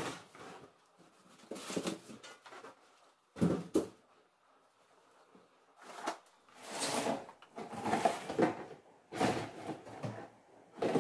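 Plastic cleaning-product bottles and containers being picked up, moved and set down in a cardboard box, in irregular bursts of clunks and rustling, with two sharp knocks about three and a half seconds in.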